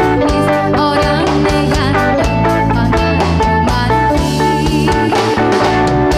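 A band playing live: electric guitar over a drum kit keeping a steady beat, with a woman singing into a microphone.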